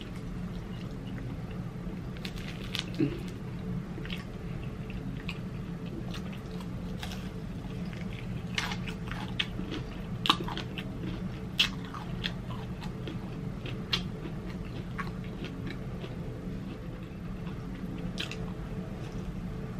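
Close-miked eating of crispy fried chicken wings: biting and chewing with scattered short, crisp crunches and wet mouth sounds, over a faint steady low hum.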